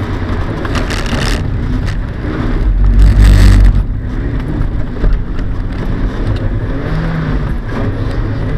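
A Mazda's engine heard from inside the cabin, running and revving as the car is driven hard on a wet surface, with tyre and water-spray noise. A loud rush of noise about three seconds in is the loudest moment, with a shorter one about a second in.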